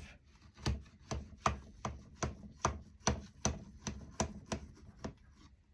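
Knife run around the inside edge of a springform pan to loosen a chilled cheesecake, the blade clicking against the pan in short, even strokes, about two and a half a second.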